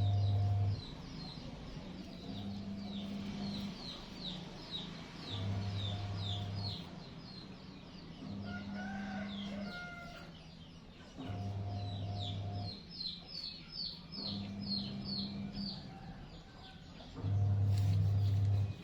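Small birds cheeping without pause, many short, high, falling peeps a second. Under them a low hum comes and goes about every three seconds, loudest at the start and near the end.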